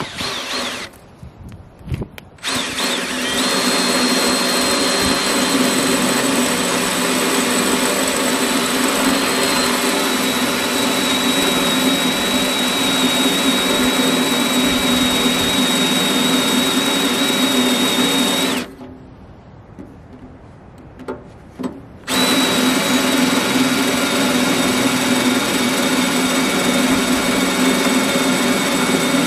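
Cordless drill with a step drill bit boring through the steel side plate of a tractor loader bucket. It starts about two seconds in with a steady high whine, stops for about three seconds, then starts again.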